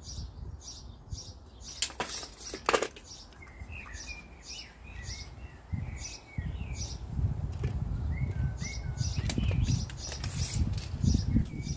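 Small birds chirping and twittering over and over, with two sharp knocks of plastic waste-pipe fittings being handled about two seconds in, and a low rumbling noise over the second half.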